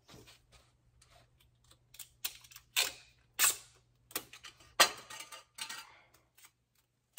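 Adhesive tape pulled off the roll in several short rips, with small clicks and rustles of handling, as a small toy water pistol is taped to a door.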